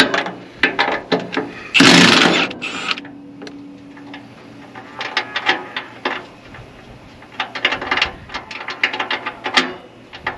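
Socket ratchet wrench clicking in quick runs as bolts are turned on a hay baler's roller assembly. About two seconds in, a loud noisy burst lasts about a second.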